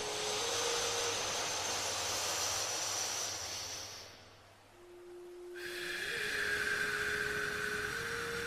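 Slow breathing through the nose as in alternate-nostril pranayama: a long inhale of about four seconds, a short pause, then a long exhale starting a little past halfway. Soft sustained music notes play underneath.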